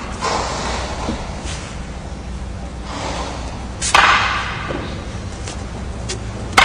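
Wooden bokken practice swords clacking together in paired sword practice: two sharp clacks, about four seconds in and right at the end, each echoing in a large hall, with fainter swishes of the swords cutting through the air between them.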